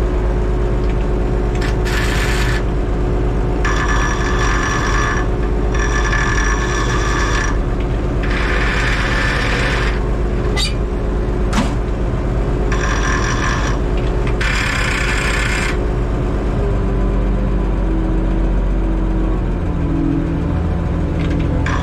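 Minneapolis Moline A4T 1600 tractor engine running steadily while the transmission is worked, with about six harsh grinding bursts, each a second or so long, as the gears resist going in. Typical of a clutch not freeing cleanly, with oil in the clutch area. Two sharp clicks come midway, and the engine note changes near the end.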